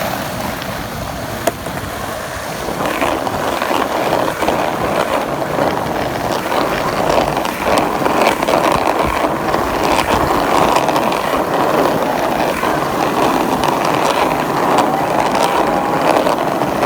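Skateboard wheels rolling on concrete, a steady rumbling noise that grows louder after a few seconds, with the odd sharp clack of the board about a second and a half in.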